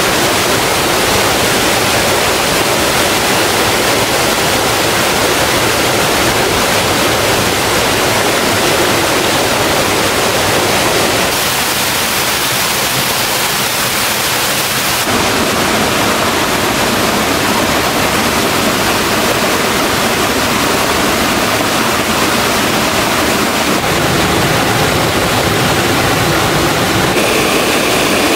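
Water rushing steadily down a mountain-stream waterfall, a loud, even noise with no pauses. Its tone shifts for a few seconds near the middle.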